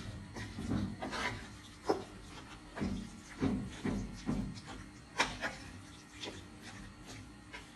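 A kitchen utensil scraping and rubbing against cookware in irregular strokes, about two a second, with a couple of sharp knocks.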